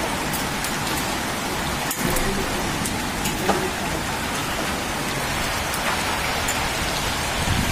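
Heavy rain mixed with hail pelting a tiled balcony: a steady dense hiss broken by scattered sharp ticks of hailstones striking.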